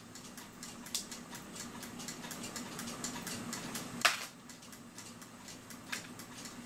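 Small metal clicks of hands working the retaining clips off a cuckoo clock movement's brass plates: three sharper clicks, the loudest about four seconds in, over faint, even ticking.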